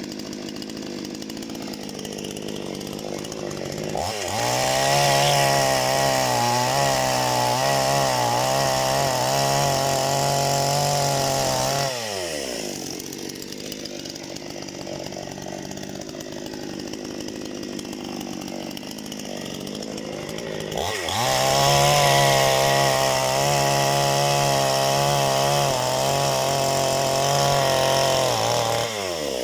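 Parma BP-058 two-stroke chainsaw idling, then run up to full throttle twice for about eight seconds each, its pitch wavering as it cuts through firewood logs, dropping back to idle between the cuts.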